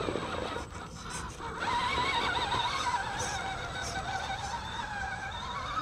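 Whine of an RC rock crawler's 35-turn brushed electric motor and gearbox under throttle on a steep rock climb. Starting about two seconds in, the pitch wavers up and down with the throttle, then rises near the end.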